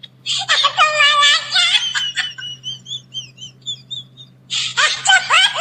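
A very high-pitched cartoon-style voice laughing and squealing, with a run of quick warbling chirps in the middle and a second burst of laughter near the end.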